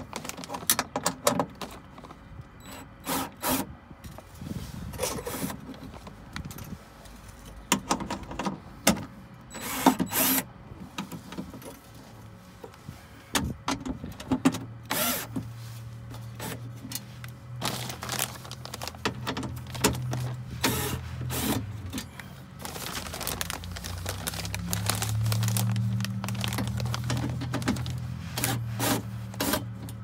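Clicks, knocks and rattles of a car door's metal service panel and its bolts being worked loose and handled. A low steady hum comes in about halfway through and runs on under them.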